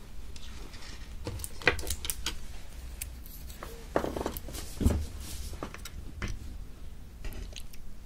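Wooden chopsticks working into a block of olbanggae-muk, Korean water-chestnut starch jelly, and prying a piece loose: soft, wet, squishy jelly sounds mixed with sharp clicks of the chopsticks, the loudest clicks about 1.7 and 4.8 seconds in.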